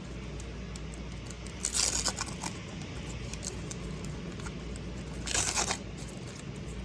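Waxed-paper wrappers of 1987 Topps baseball card packs being torn open and crinkled. Two short, louder bursts of tearing and rustling come about two seconds in and again about five seconds in, over a steady low hum.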